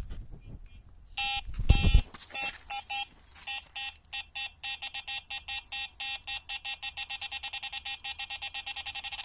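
Electronic carp bite alarm sounding a run: a couple of beeps about a second in, then quickening into a fast, even string of beeps, about six a second, the sign of a fish taking line off the reel. A loud low rumble fills the first two seconds.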